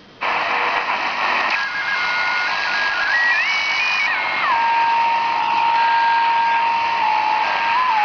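Emergency-alert-style alarm audio: a loud static hiss with electronic tones over it that step up in pitch to a peak about four seconds in, then drop and hold a steady lower tone.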